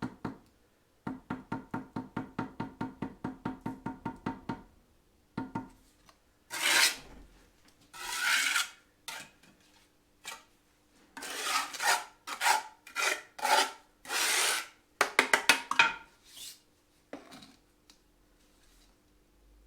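Bricklaying work: a quick run of ringing taps, about seven a second, then several separate rough scraping strokes of a trowel on brick and mortar.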